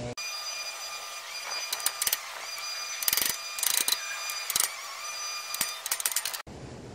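Ratchet wrench clicking in several short bursts of rapid clicks, about a second apart, as it is worked at the axle end.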